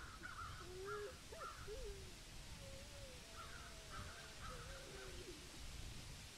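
Faint crows cawing in short runs of calls, twice, with faint wavering lower tones beneath.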